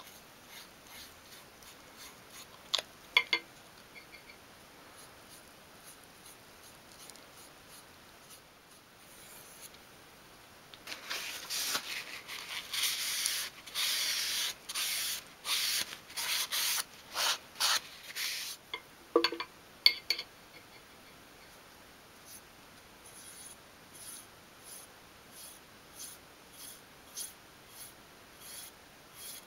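Folded paper towel rubbed in short strokes over a small piece of wood wet with wood dye, loudest through the middle. Before and after it, faint strokes of a paintbrush brushing the wood dye on.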